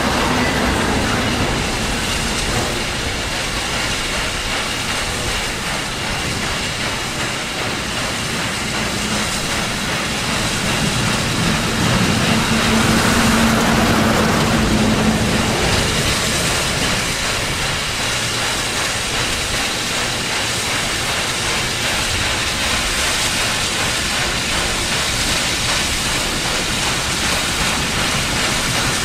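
SY-class 2-8-2 steam locomotive working hard with a train of wagons: steady heavy exhaust together with the noise of the train rolling. A low steady tone sounds for a few seconds in the middle, where the sound is loudest.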